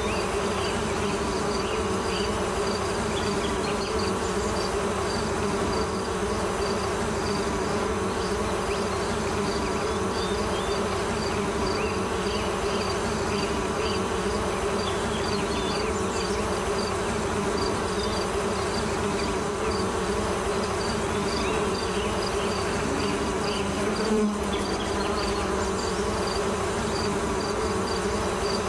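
Steady buzzing drone of flying insects with small high chirps repeating over it, and one short knock about three-quarters of the way through.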